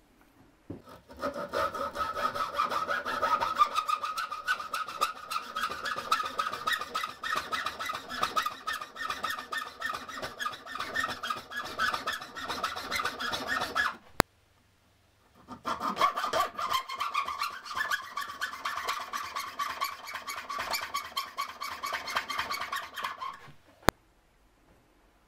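Hacksaw cutting a slot into the end of a wooden hammer handle clamped in a vise, in fast, even strokes. It runs in two bouts with a brief stop in the middle, and a sharp click sounds at that stop and again just after the sawing ends.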